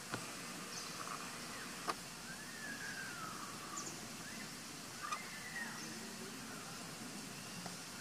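Faint outdoor tree-canopy ambience with a few arching whistle-like animal calls that rise and fall, one lasting about a second. A few sharp clicks come near the start, about two seconds in and about five seconds in.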